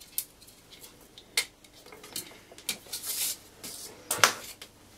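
Light clicks and clinks of hand tools, a soldering iron and long-nose pliers, being handled against the frame plate and workbench while soldering ESC wires, with a sharper tap about four seconds in.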